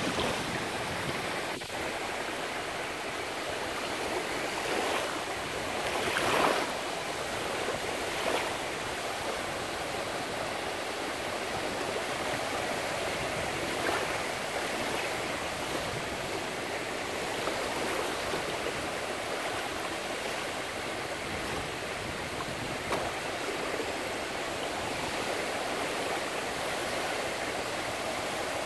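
Small surf breaking and washing over the sand in shallow water at the shoreline: a steady hiss of water, with a few brief louder surges as waves break, the loudest about six seconds in.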